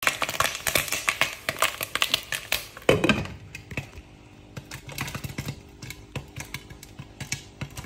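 Popcorn kernels popping and crackling in a pan with oil and chocolate topping, densely at first. After a single louder knock about three seconds in, the pops come sparser and quieter under a glass lid.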